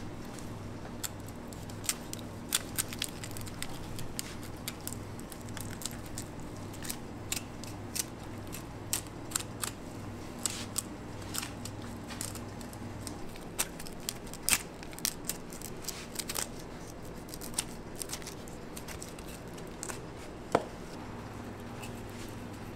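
Long tuna knife slicing through the skin, scales and flesh of a whole bluefin tuna, giving an irregular run of crisp clicks and crackles over a low steady hum, with one sharper knock near the end.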